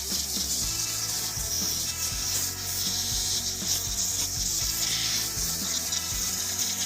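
Steady scratchy rubbing and scraping as the STIHL FC 56C edger's dirty parts are scrubbed clean.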